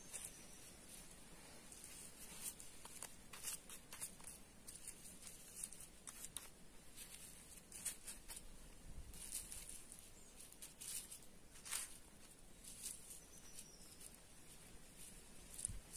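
Fingers pressing and scratching in dry, crumbly potting soil, working garlic skins into it: faint, scattered rustles and crumbling scrapes.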